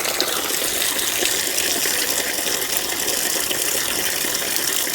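Water gushing steadily from a sink tap running at full flow, the hot and cold supply working again after the pipes were cleared of an airlock.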